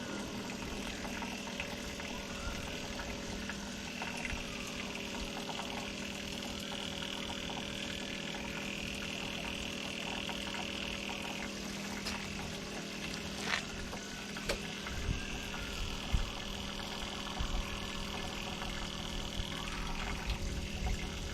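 Electric fuel pump on a Honda Helix scooter humming steadily as it pumps gasoline out of the tank into a jug, with a hiss of flowing fuel for stretches. A few light knocks come after the middle and near the end.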